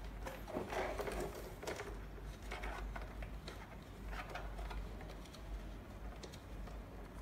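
Hands working in the plastic cuff housing of an arm-in blood pressure monitor while threading an airbag's air tube: scattered light clicks, taps and rustles.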